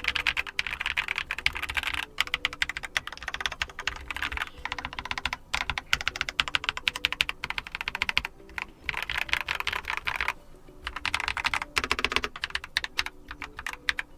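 Keychron K2 mechanical keyboard with factory-lubricated brown tactile Keychron Super Switches being typed on quickly, a steady stream of key clacks with a few short pauses, the keyboard set on a softer surface.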